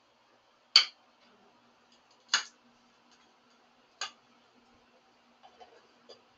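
Three sharp clicking knocks of hard objects, about a second and a half apart and each quieter than the last, as paint cans, cups and brushes are handled on the work table; a few softer clinks follow near the end.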